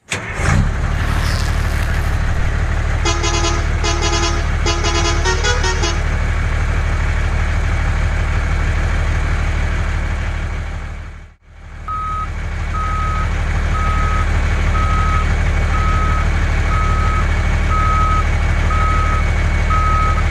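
Truck engine running steadily, with a short run of horn toots about three to six seconds in. After a brief break near the middle, a reversing beeper sounds about once a second, nine times.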